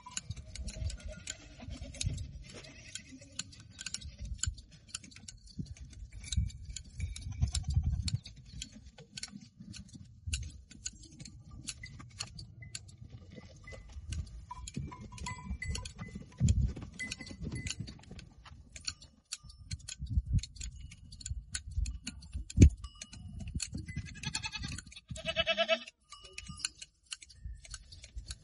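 Goats bleating during hand shearing, with one clear long bleat about 25 seconds in. Many small sharp clicks of shears cutting goat hair run through a low, uneven rumble.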